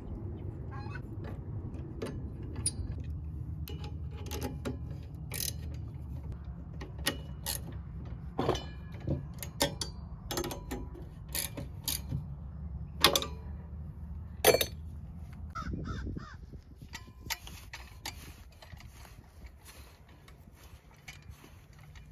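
Steel cultivator tines and mounting hardware clinking and knocking against a Hoss double wheel hoe's metal frame as they are bolted on with hand tools. The sharp metallic clinks come irregularly and thin out over the last few seconds.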